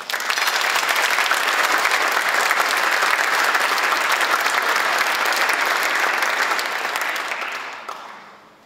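Audience applauding: dense, steady clapping that starts at once and dies away near the end.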